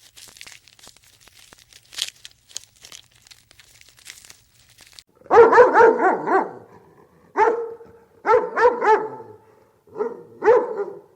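Dog barking in short quick runs of two to four barks, about a dozen in all, starting about halfway in after a few seconds of faint scattered clicks.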